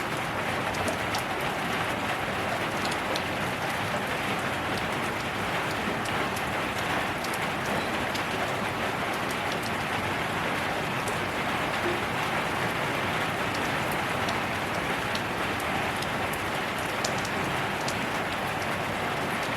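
Steady rain falling: a dense, even hiss of rain on a surface, with scattered sharp drop ticks.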